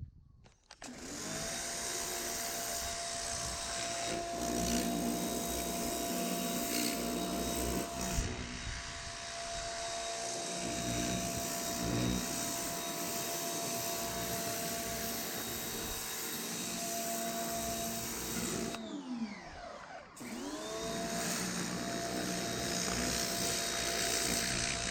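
Pressure washer running and spraying: a steady motor whine over the hiss of the water jet. About nineteen seconds in the motor winds down, then spins back up a second or so later.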